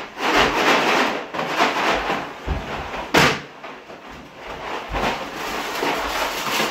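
Cardboard cereal boxes being hurriedly torn open, with cardboard ripping and plastic liner bags rustling. A sharp bang about three seconds in is the loudest sound, with a few lighter knocks around it.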